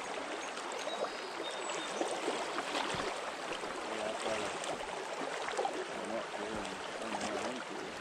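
Stream current running steadily, a continuous rush of flowing water.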